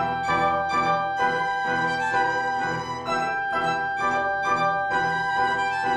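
Film score music led by violin, with a pulsing accompaniment and a long high note held through the second half.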